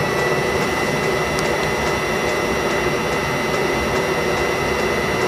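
Webasto Thermo Top C auxiliary heater running: a steady blower whine with a faint regular ticking.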